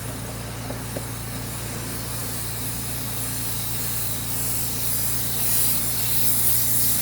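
Compressed-air dryer vent cleaning tool hissing steadily as it is drawn back out of the vent duct, growing louder toward the end, over a steady low hum.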